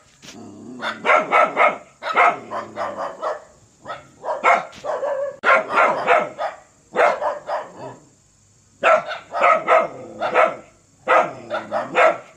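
Dog barking in quick runs of several barks each, with short pauses between the runs.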